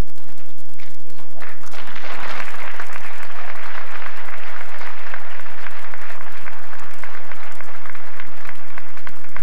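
Audience applauding: a few scattered claps at first, then many hands clapping together from about two seconds in, held steady.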